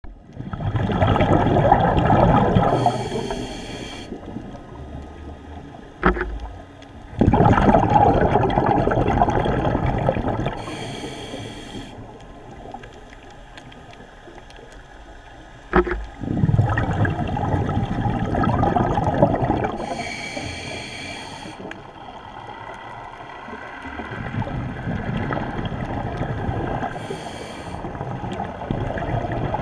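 Scuba diver breathing through a regulator underwater. There are four long bubbling rushes of exhaled air, each ending in a short hiss of inhalation, about every eight seconds. Two sharp clicks fall between breaths.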